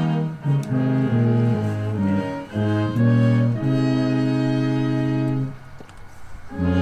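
Slow instrumental background music: a run of sustained notes, one held for about two seconds in the middle, with a brief lull near the end.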